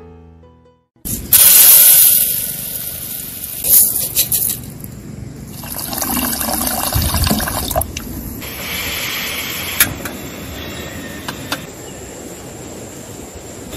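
Water pouring from a plastic jug's spout and splashing into a camping pot of rice, filling it. Later, a portable gas camp stove clicks and its burner hisses steadily.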